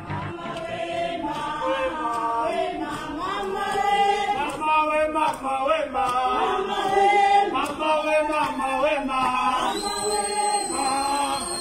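A group of picketing nurses singing a protest song together as they march, held notes moving from one to the next every second or so.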